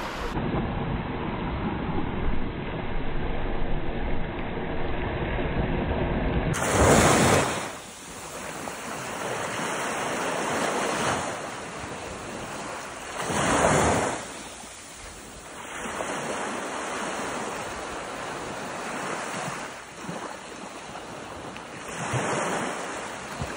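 Small surf washing up on a sandy beach, the waves surging in and drawing back, with the loudest breakers coming every six to eight seconds after the first quarter. Wind buffets the microphone.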